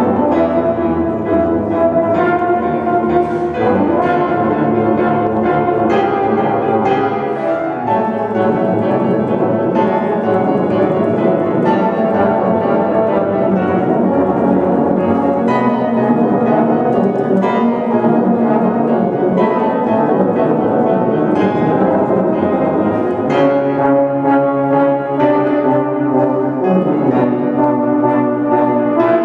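Tuba and euphonium playing a duet, the two brass instruments sounding together.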